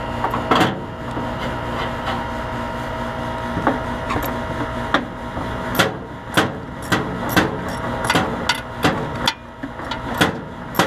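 Ratchet wrench working a stuck compressor mounting bolt loose: sharp metal clicks, about two a second from about four seconds in, over a steady machine hum.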